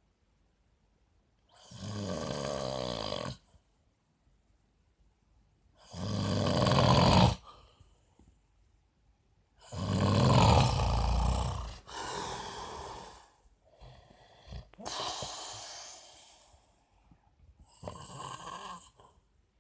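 A man snoring in his sleep: loud snores repeating every three to four seconds with quiet breaths between, the loudest about ten seconds in.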